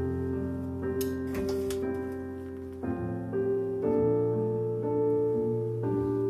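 Piano accompaniment to a slow ballad, playing the intro as a run of sustained chords that change every second or two, with a short patch of clicks about a second in.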